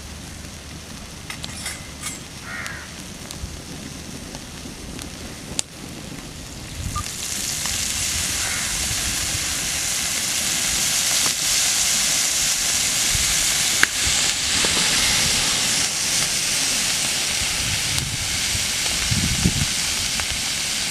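Fish fillets frying in oil on a flat iron griddle over a wood fire: a steady sizzle that swells louder about seven seconds in and then holds, with a few sharp clicks.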